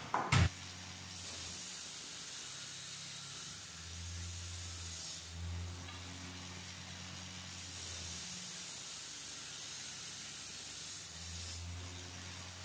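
A single sharp knock near the start, as the wooden fence rail is set down on the table saw's top, then a steady hiss with a low hum that swells and fades.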